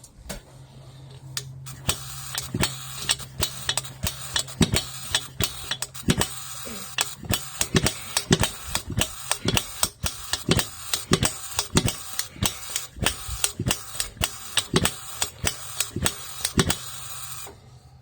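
Barco H-6 gasoline jackhammer running in sharp, uneven firing pops, about two to three a second. They start about two seconds in and stop shortly before the end. The engine can't seem to pick up enough fuel.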